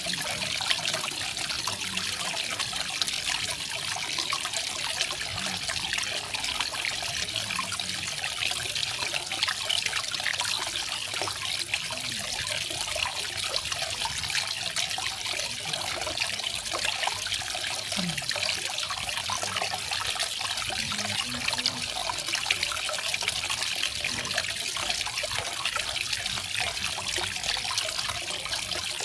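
Small garden waterfall: water falling and splashing steadily in a continuous trickling hiss.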